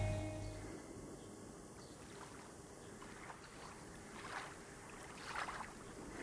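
A score fading out in the first second, then faint outdoor ambience with a few soft whooshing swells.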